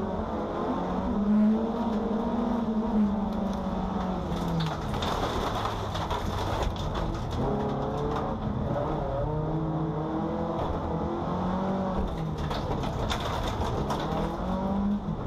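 Race car's engine heard from inside the car, revving up and down as it accelerates through the gears on the track. Bursts of rattling clicks come over it partway through and again near the end.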